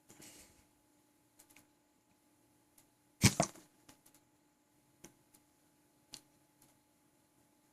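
A man's hiccup: one sudden sharp gulping click about three seconds in. The hiccups come every four seconds or so, and faint small clicks and a soft breath lie between them.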